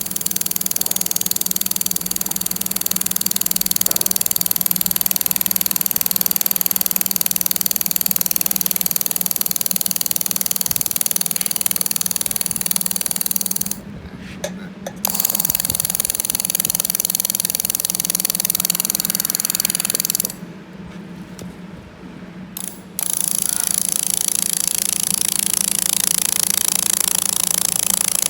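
Handheld laser welding machine welding thin sheet steel: a loud, steady hiss with a high whine, cut off twice when welding stops, for about a second near the middle and for a few seconds later on. A low steady hum from the machine runs underneath.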